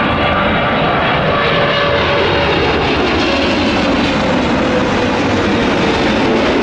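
Boeing 777's GE90 turbofan engines on final approach, flying low overhead with landing gear down: loud steady jet noise with a whine that slowly falls in pitch as the airliner passes.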